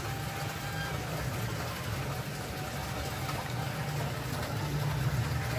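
Steady rushing of running water, with a low rumble underneath.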